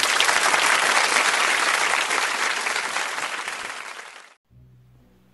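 Applause from many clapping hands. It starts abruptly, eases off slowly and cuts off sharply about four seconds in, leaving only a faint low hum.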